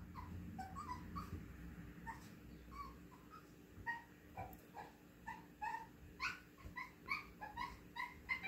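A small dog whimpering in short, high-pitched whines, faint at first and coming more often from about four seconds in.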